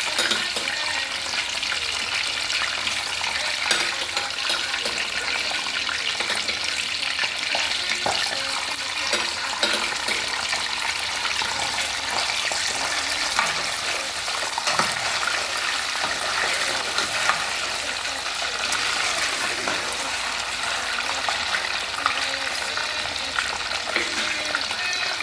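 Potatoes deep-frying in hot oil: a steady, dense sizzle with many small pops and crackles throughout.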